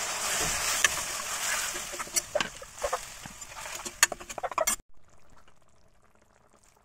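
Tomato purée sizzling in hot oil and spices in a steel kadhai, the hiss dying down while a steel ladle stirs and clinks sharply against the pan. The sound cuts off suddenly just before five seconds in, leaving only a faint hum.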